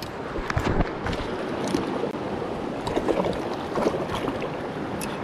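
River water rushing, with scattered sharp clicks and a few low knocks and thumps close to the microphone.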